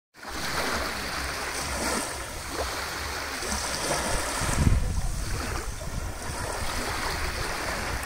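Sea water washing and lapping, with wind rumbling on the microphone. The sound swells a little about halfway through.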